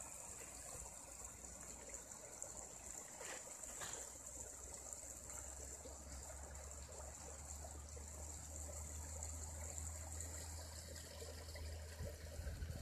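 A small brook trickling, faint and steady, with a low rumble coming in about halfway through.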